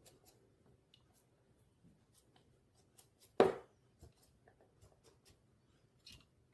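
Kitchen knife scraping the skin off a bellflower (doraji) root on a cutting board: faint, short scratchy strokes, with one much louder knock about three and a half seconds in.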